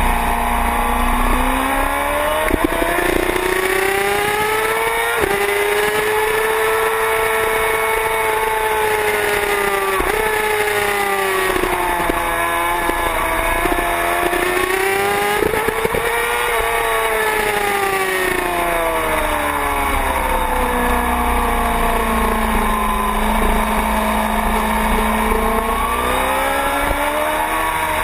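Sport motorcycle engine at high revs on a race track, heard from onboard. Its pitch climbs under acceleration, dips briefly at each gear change and falls away under braking into corners, rising and falling over and over.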